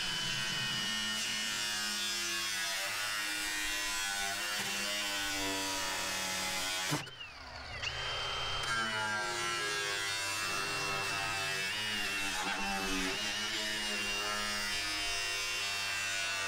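Handheld cut-off grinder whining steadily as its disc cuts through the sheet steel of an old Chevrolet truck's front clip. The whine stops about seven seconds in and starts again a second later.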